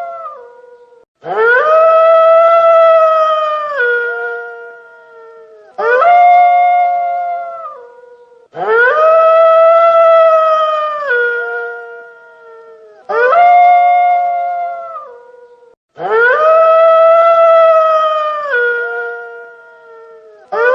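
A single wolf howling again and again, about six howls with short gaps between them. Each howl starts abruptly, holds one steady pitch and slides down at the end, with longer and shorter howls taking turns.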